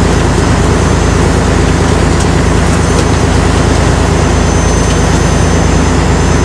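Fishing boat's engine running steadily with the boat underway: a loud, even low drone that does not change.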